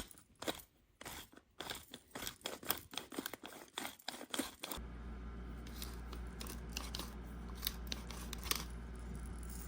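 Manual pepper grinder crushing peppercorns: rapid crunching clicks that thin out about halfway through, when a steady low hum comes in.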